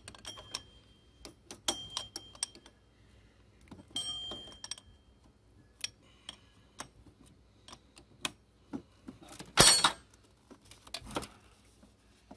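Combination wrench clicking and clinking against metal while loosening a fitting on the power steering pump, with a few short metallic rings. A louder clatter comes a little under ten seconds in.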